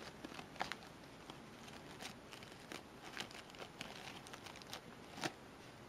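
Faint, irregular crinkling and light clicks from an artificial fabric flower with metallic leaves and wire-stemmed embellishments being handled and fitted together.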